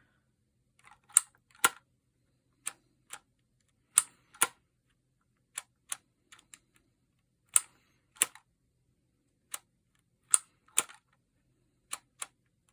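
Phomemo E975 handheld embossing label maker clicking as its letter dial is turned and its trigger squeezed to emboss one letter after another: a string of sharp clicks, several in pairs about half a second apart, with fainter clicks in between.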